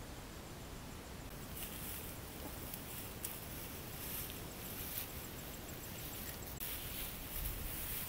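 Tall grass rustling and swishing in repeated brushes as a person pushes through it on foot, starting about a second in.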